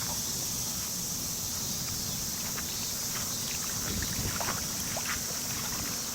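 Lake water splashing and lapping with small scattered splashes, over wind rumble on the microphone and a steady high hiss.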